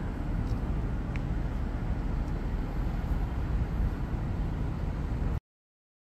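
Steady low rumbling noise with no clear pitch, cutting off suddenly to silence about five seconds in.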